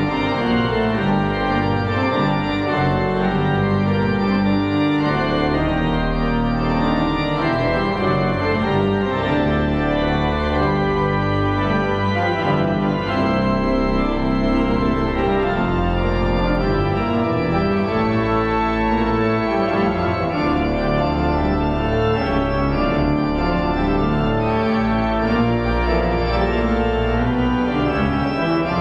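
Organ music: held chords that shift every second or two, played at an even loudness without a break.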